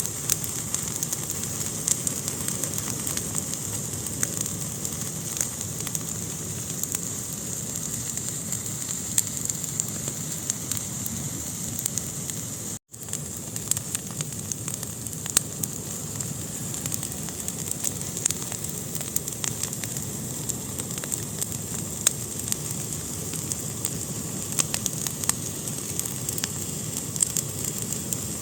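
Fire burning in a fireplace: a steady hiss with many sharp, irregular crackles and pops. The sound cuts out for an instant about halfway through.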